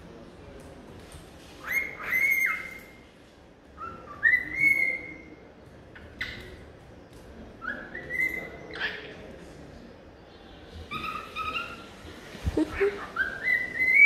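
Cockatiel whistling: a string of short whistles, each sliding up in pitch and then held briefly, coming more often near the end.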